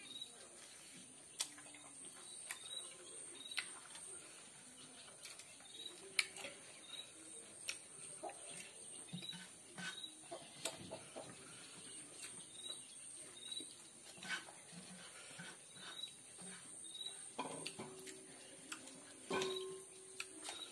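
Close-up eating sounds: chewing and fingers squishing and scooping rice on a steel plate, heard as scattered small clicks and taps. Small birds chirp repeatedly in the background over a steady high-pitched trill.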